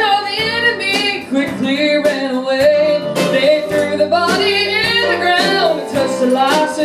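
A live church band playing a country-style gospel song on guitars, with a voice singing over it.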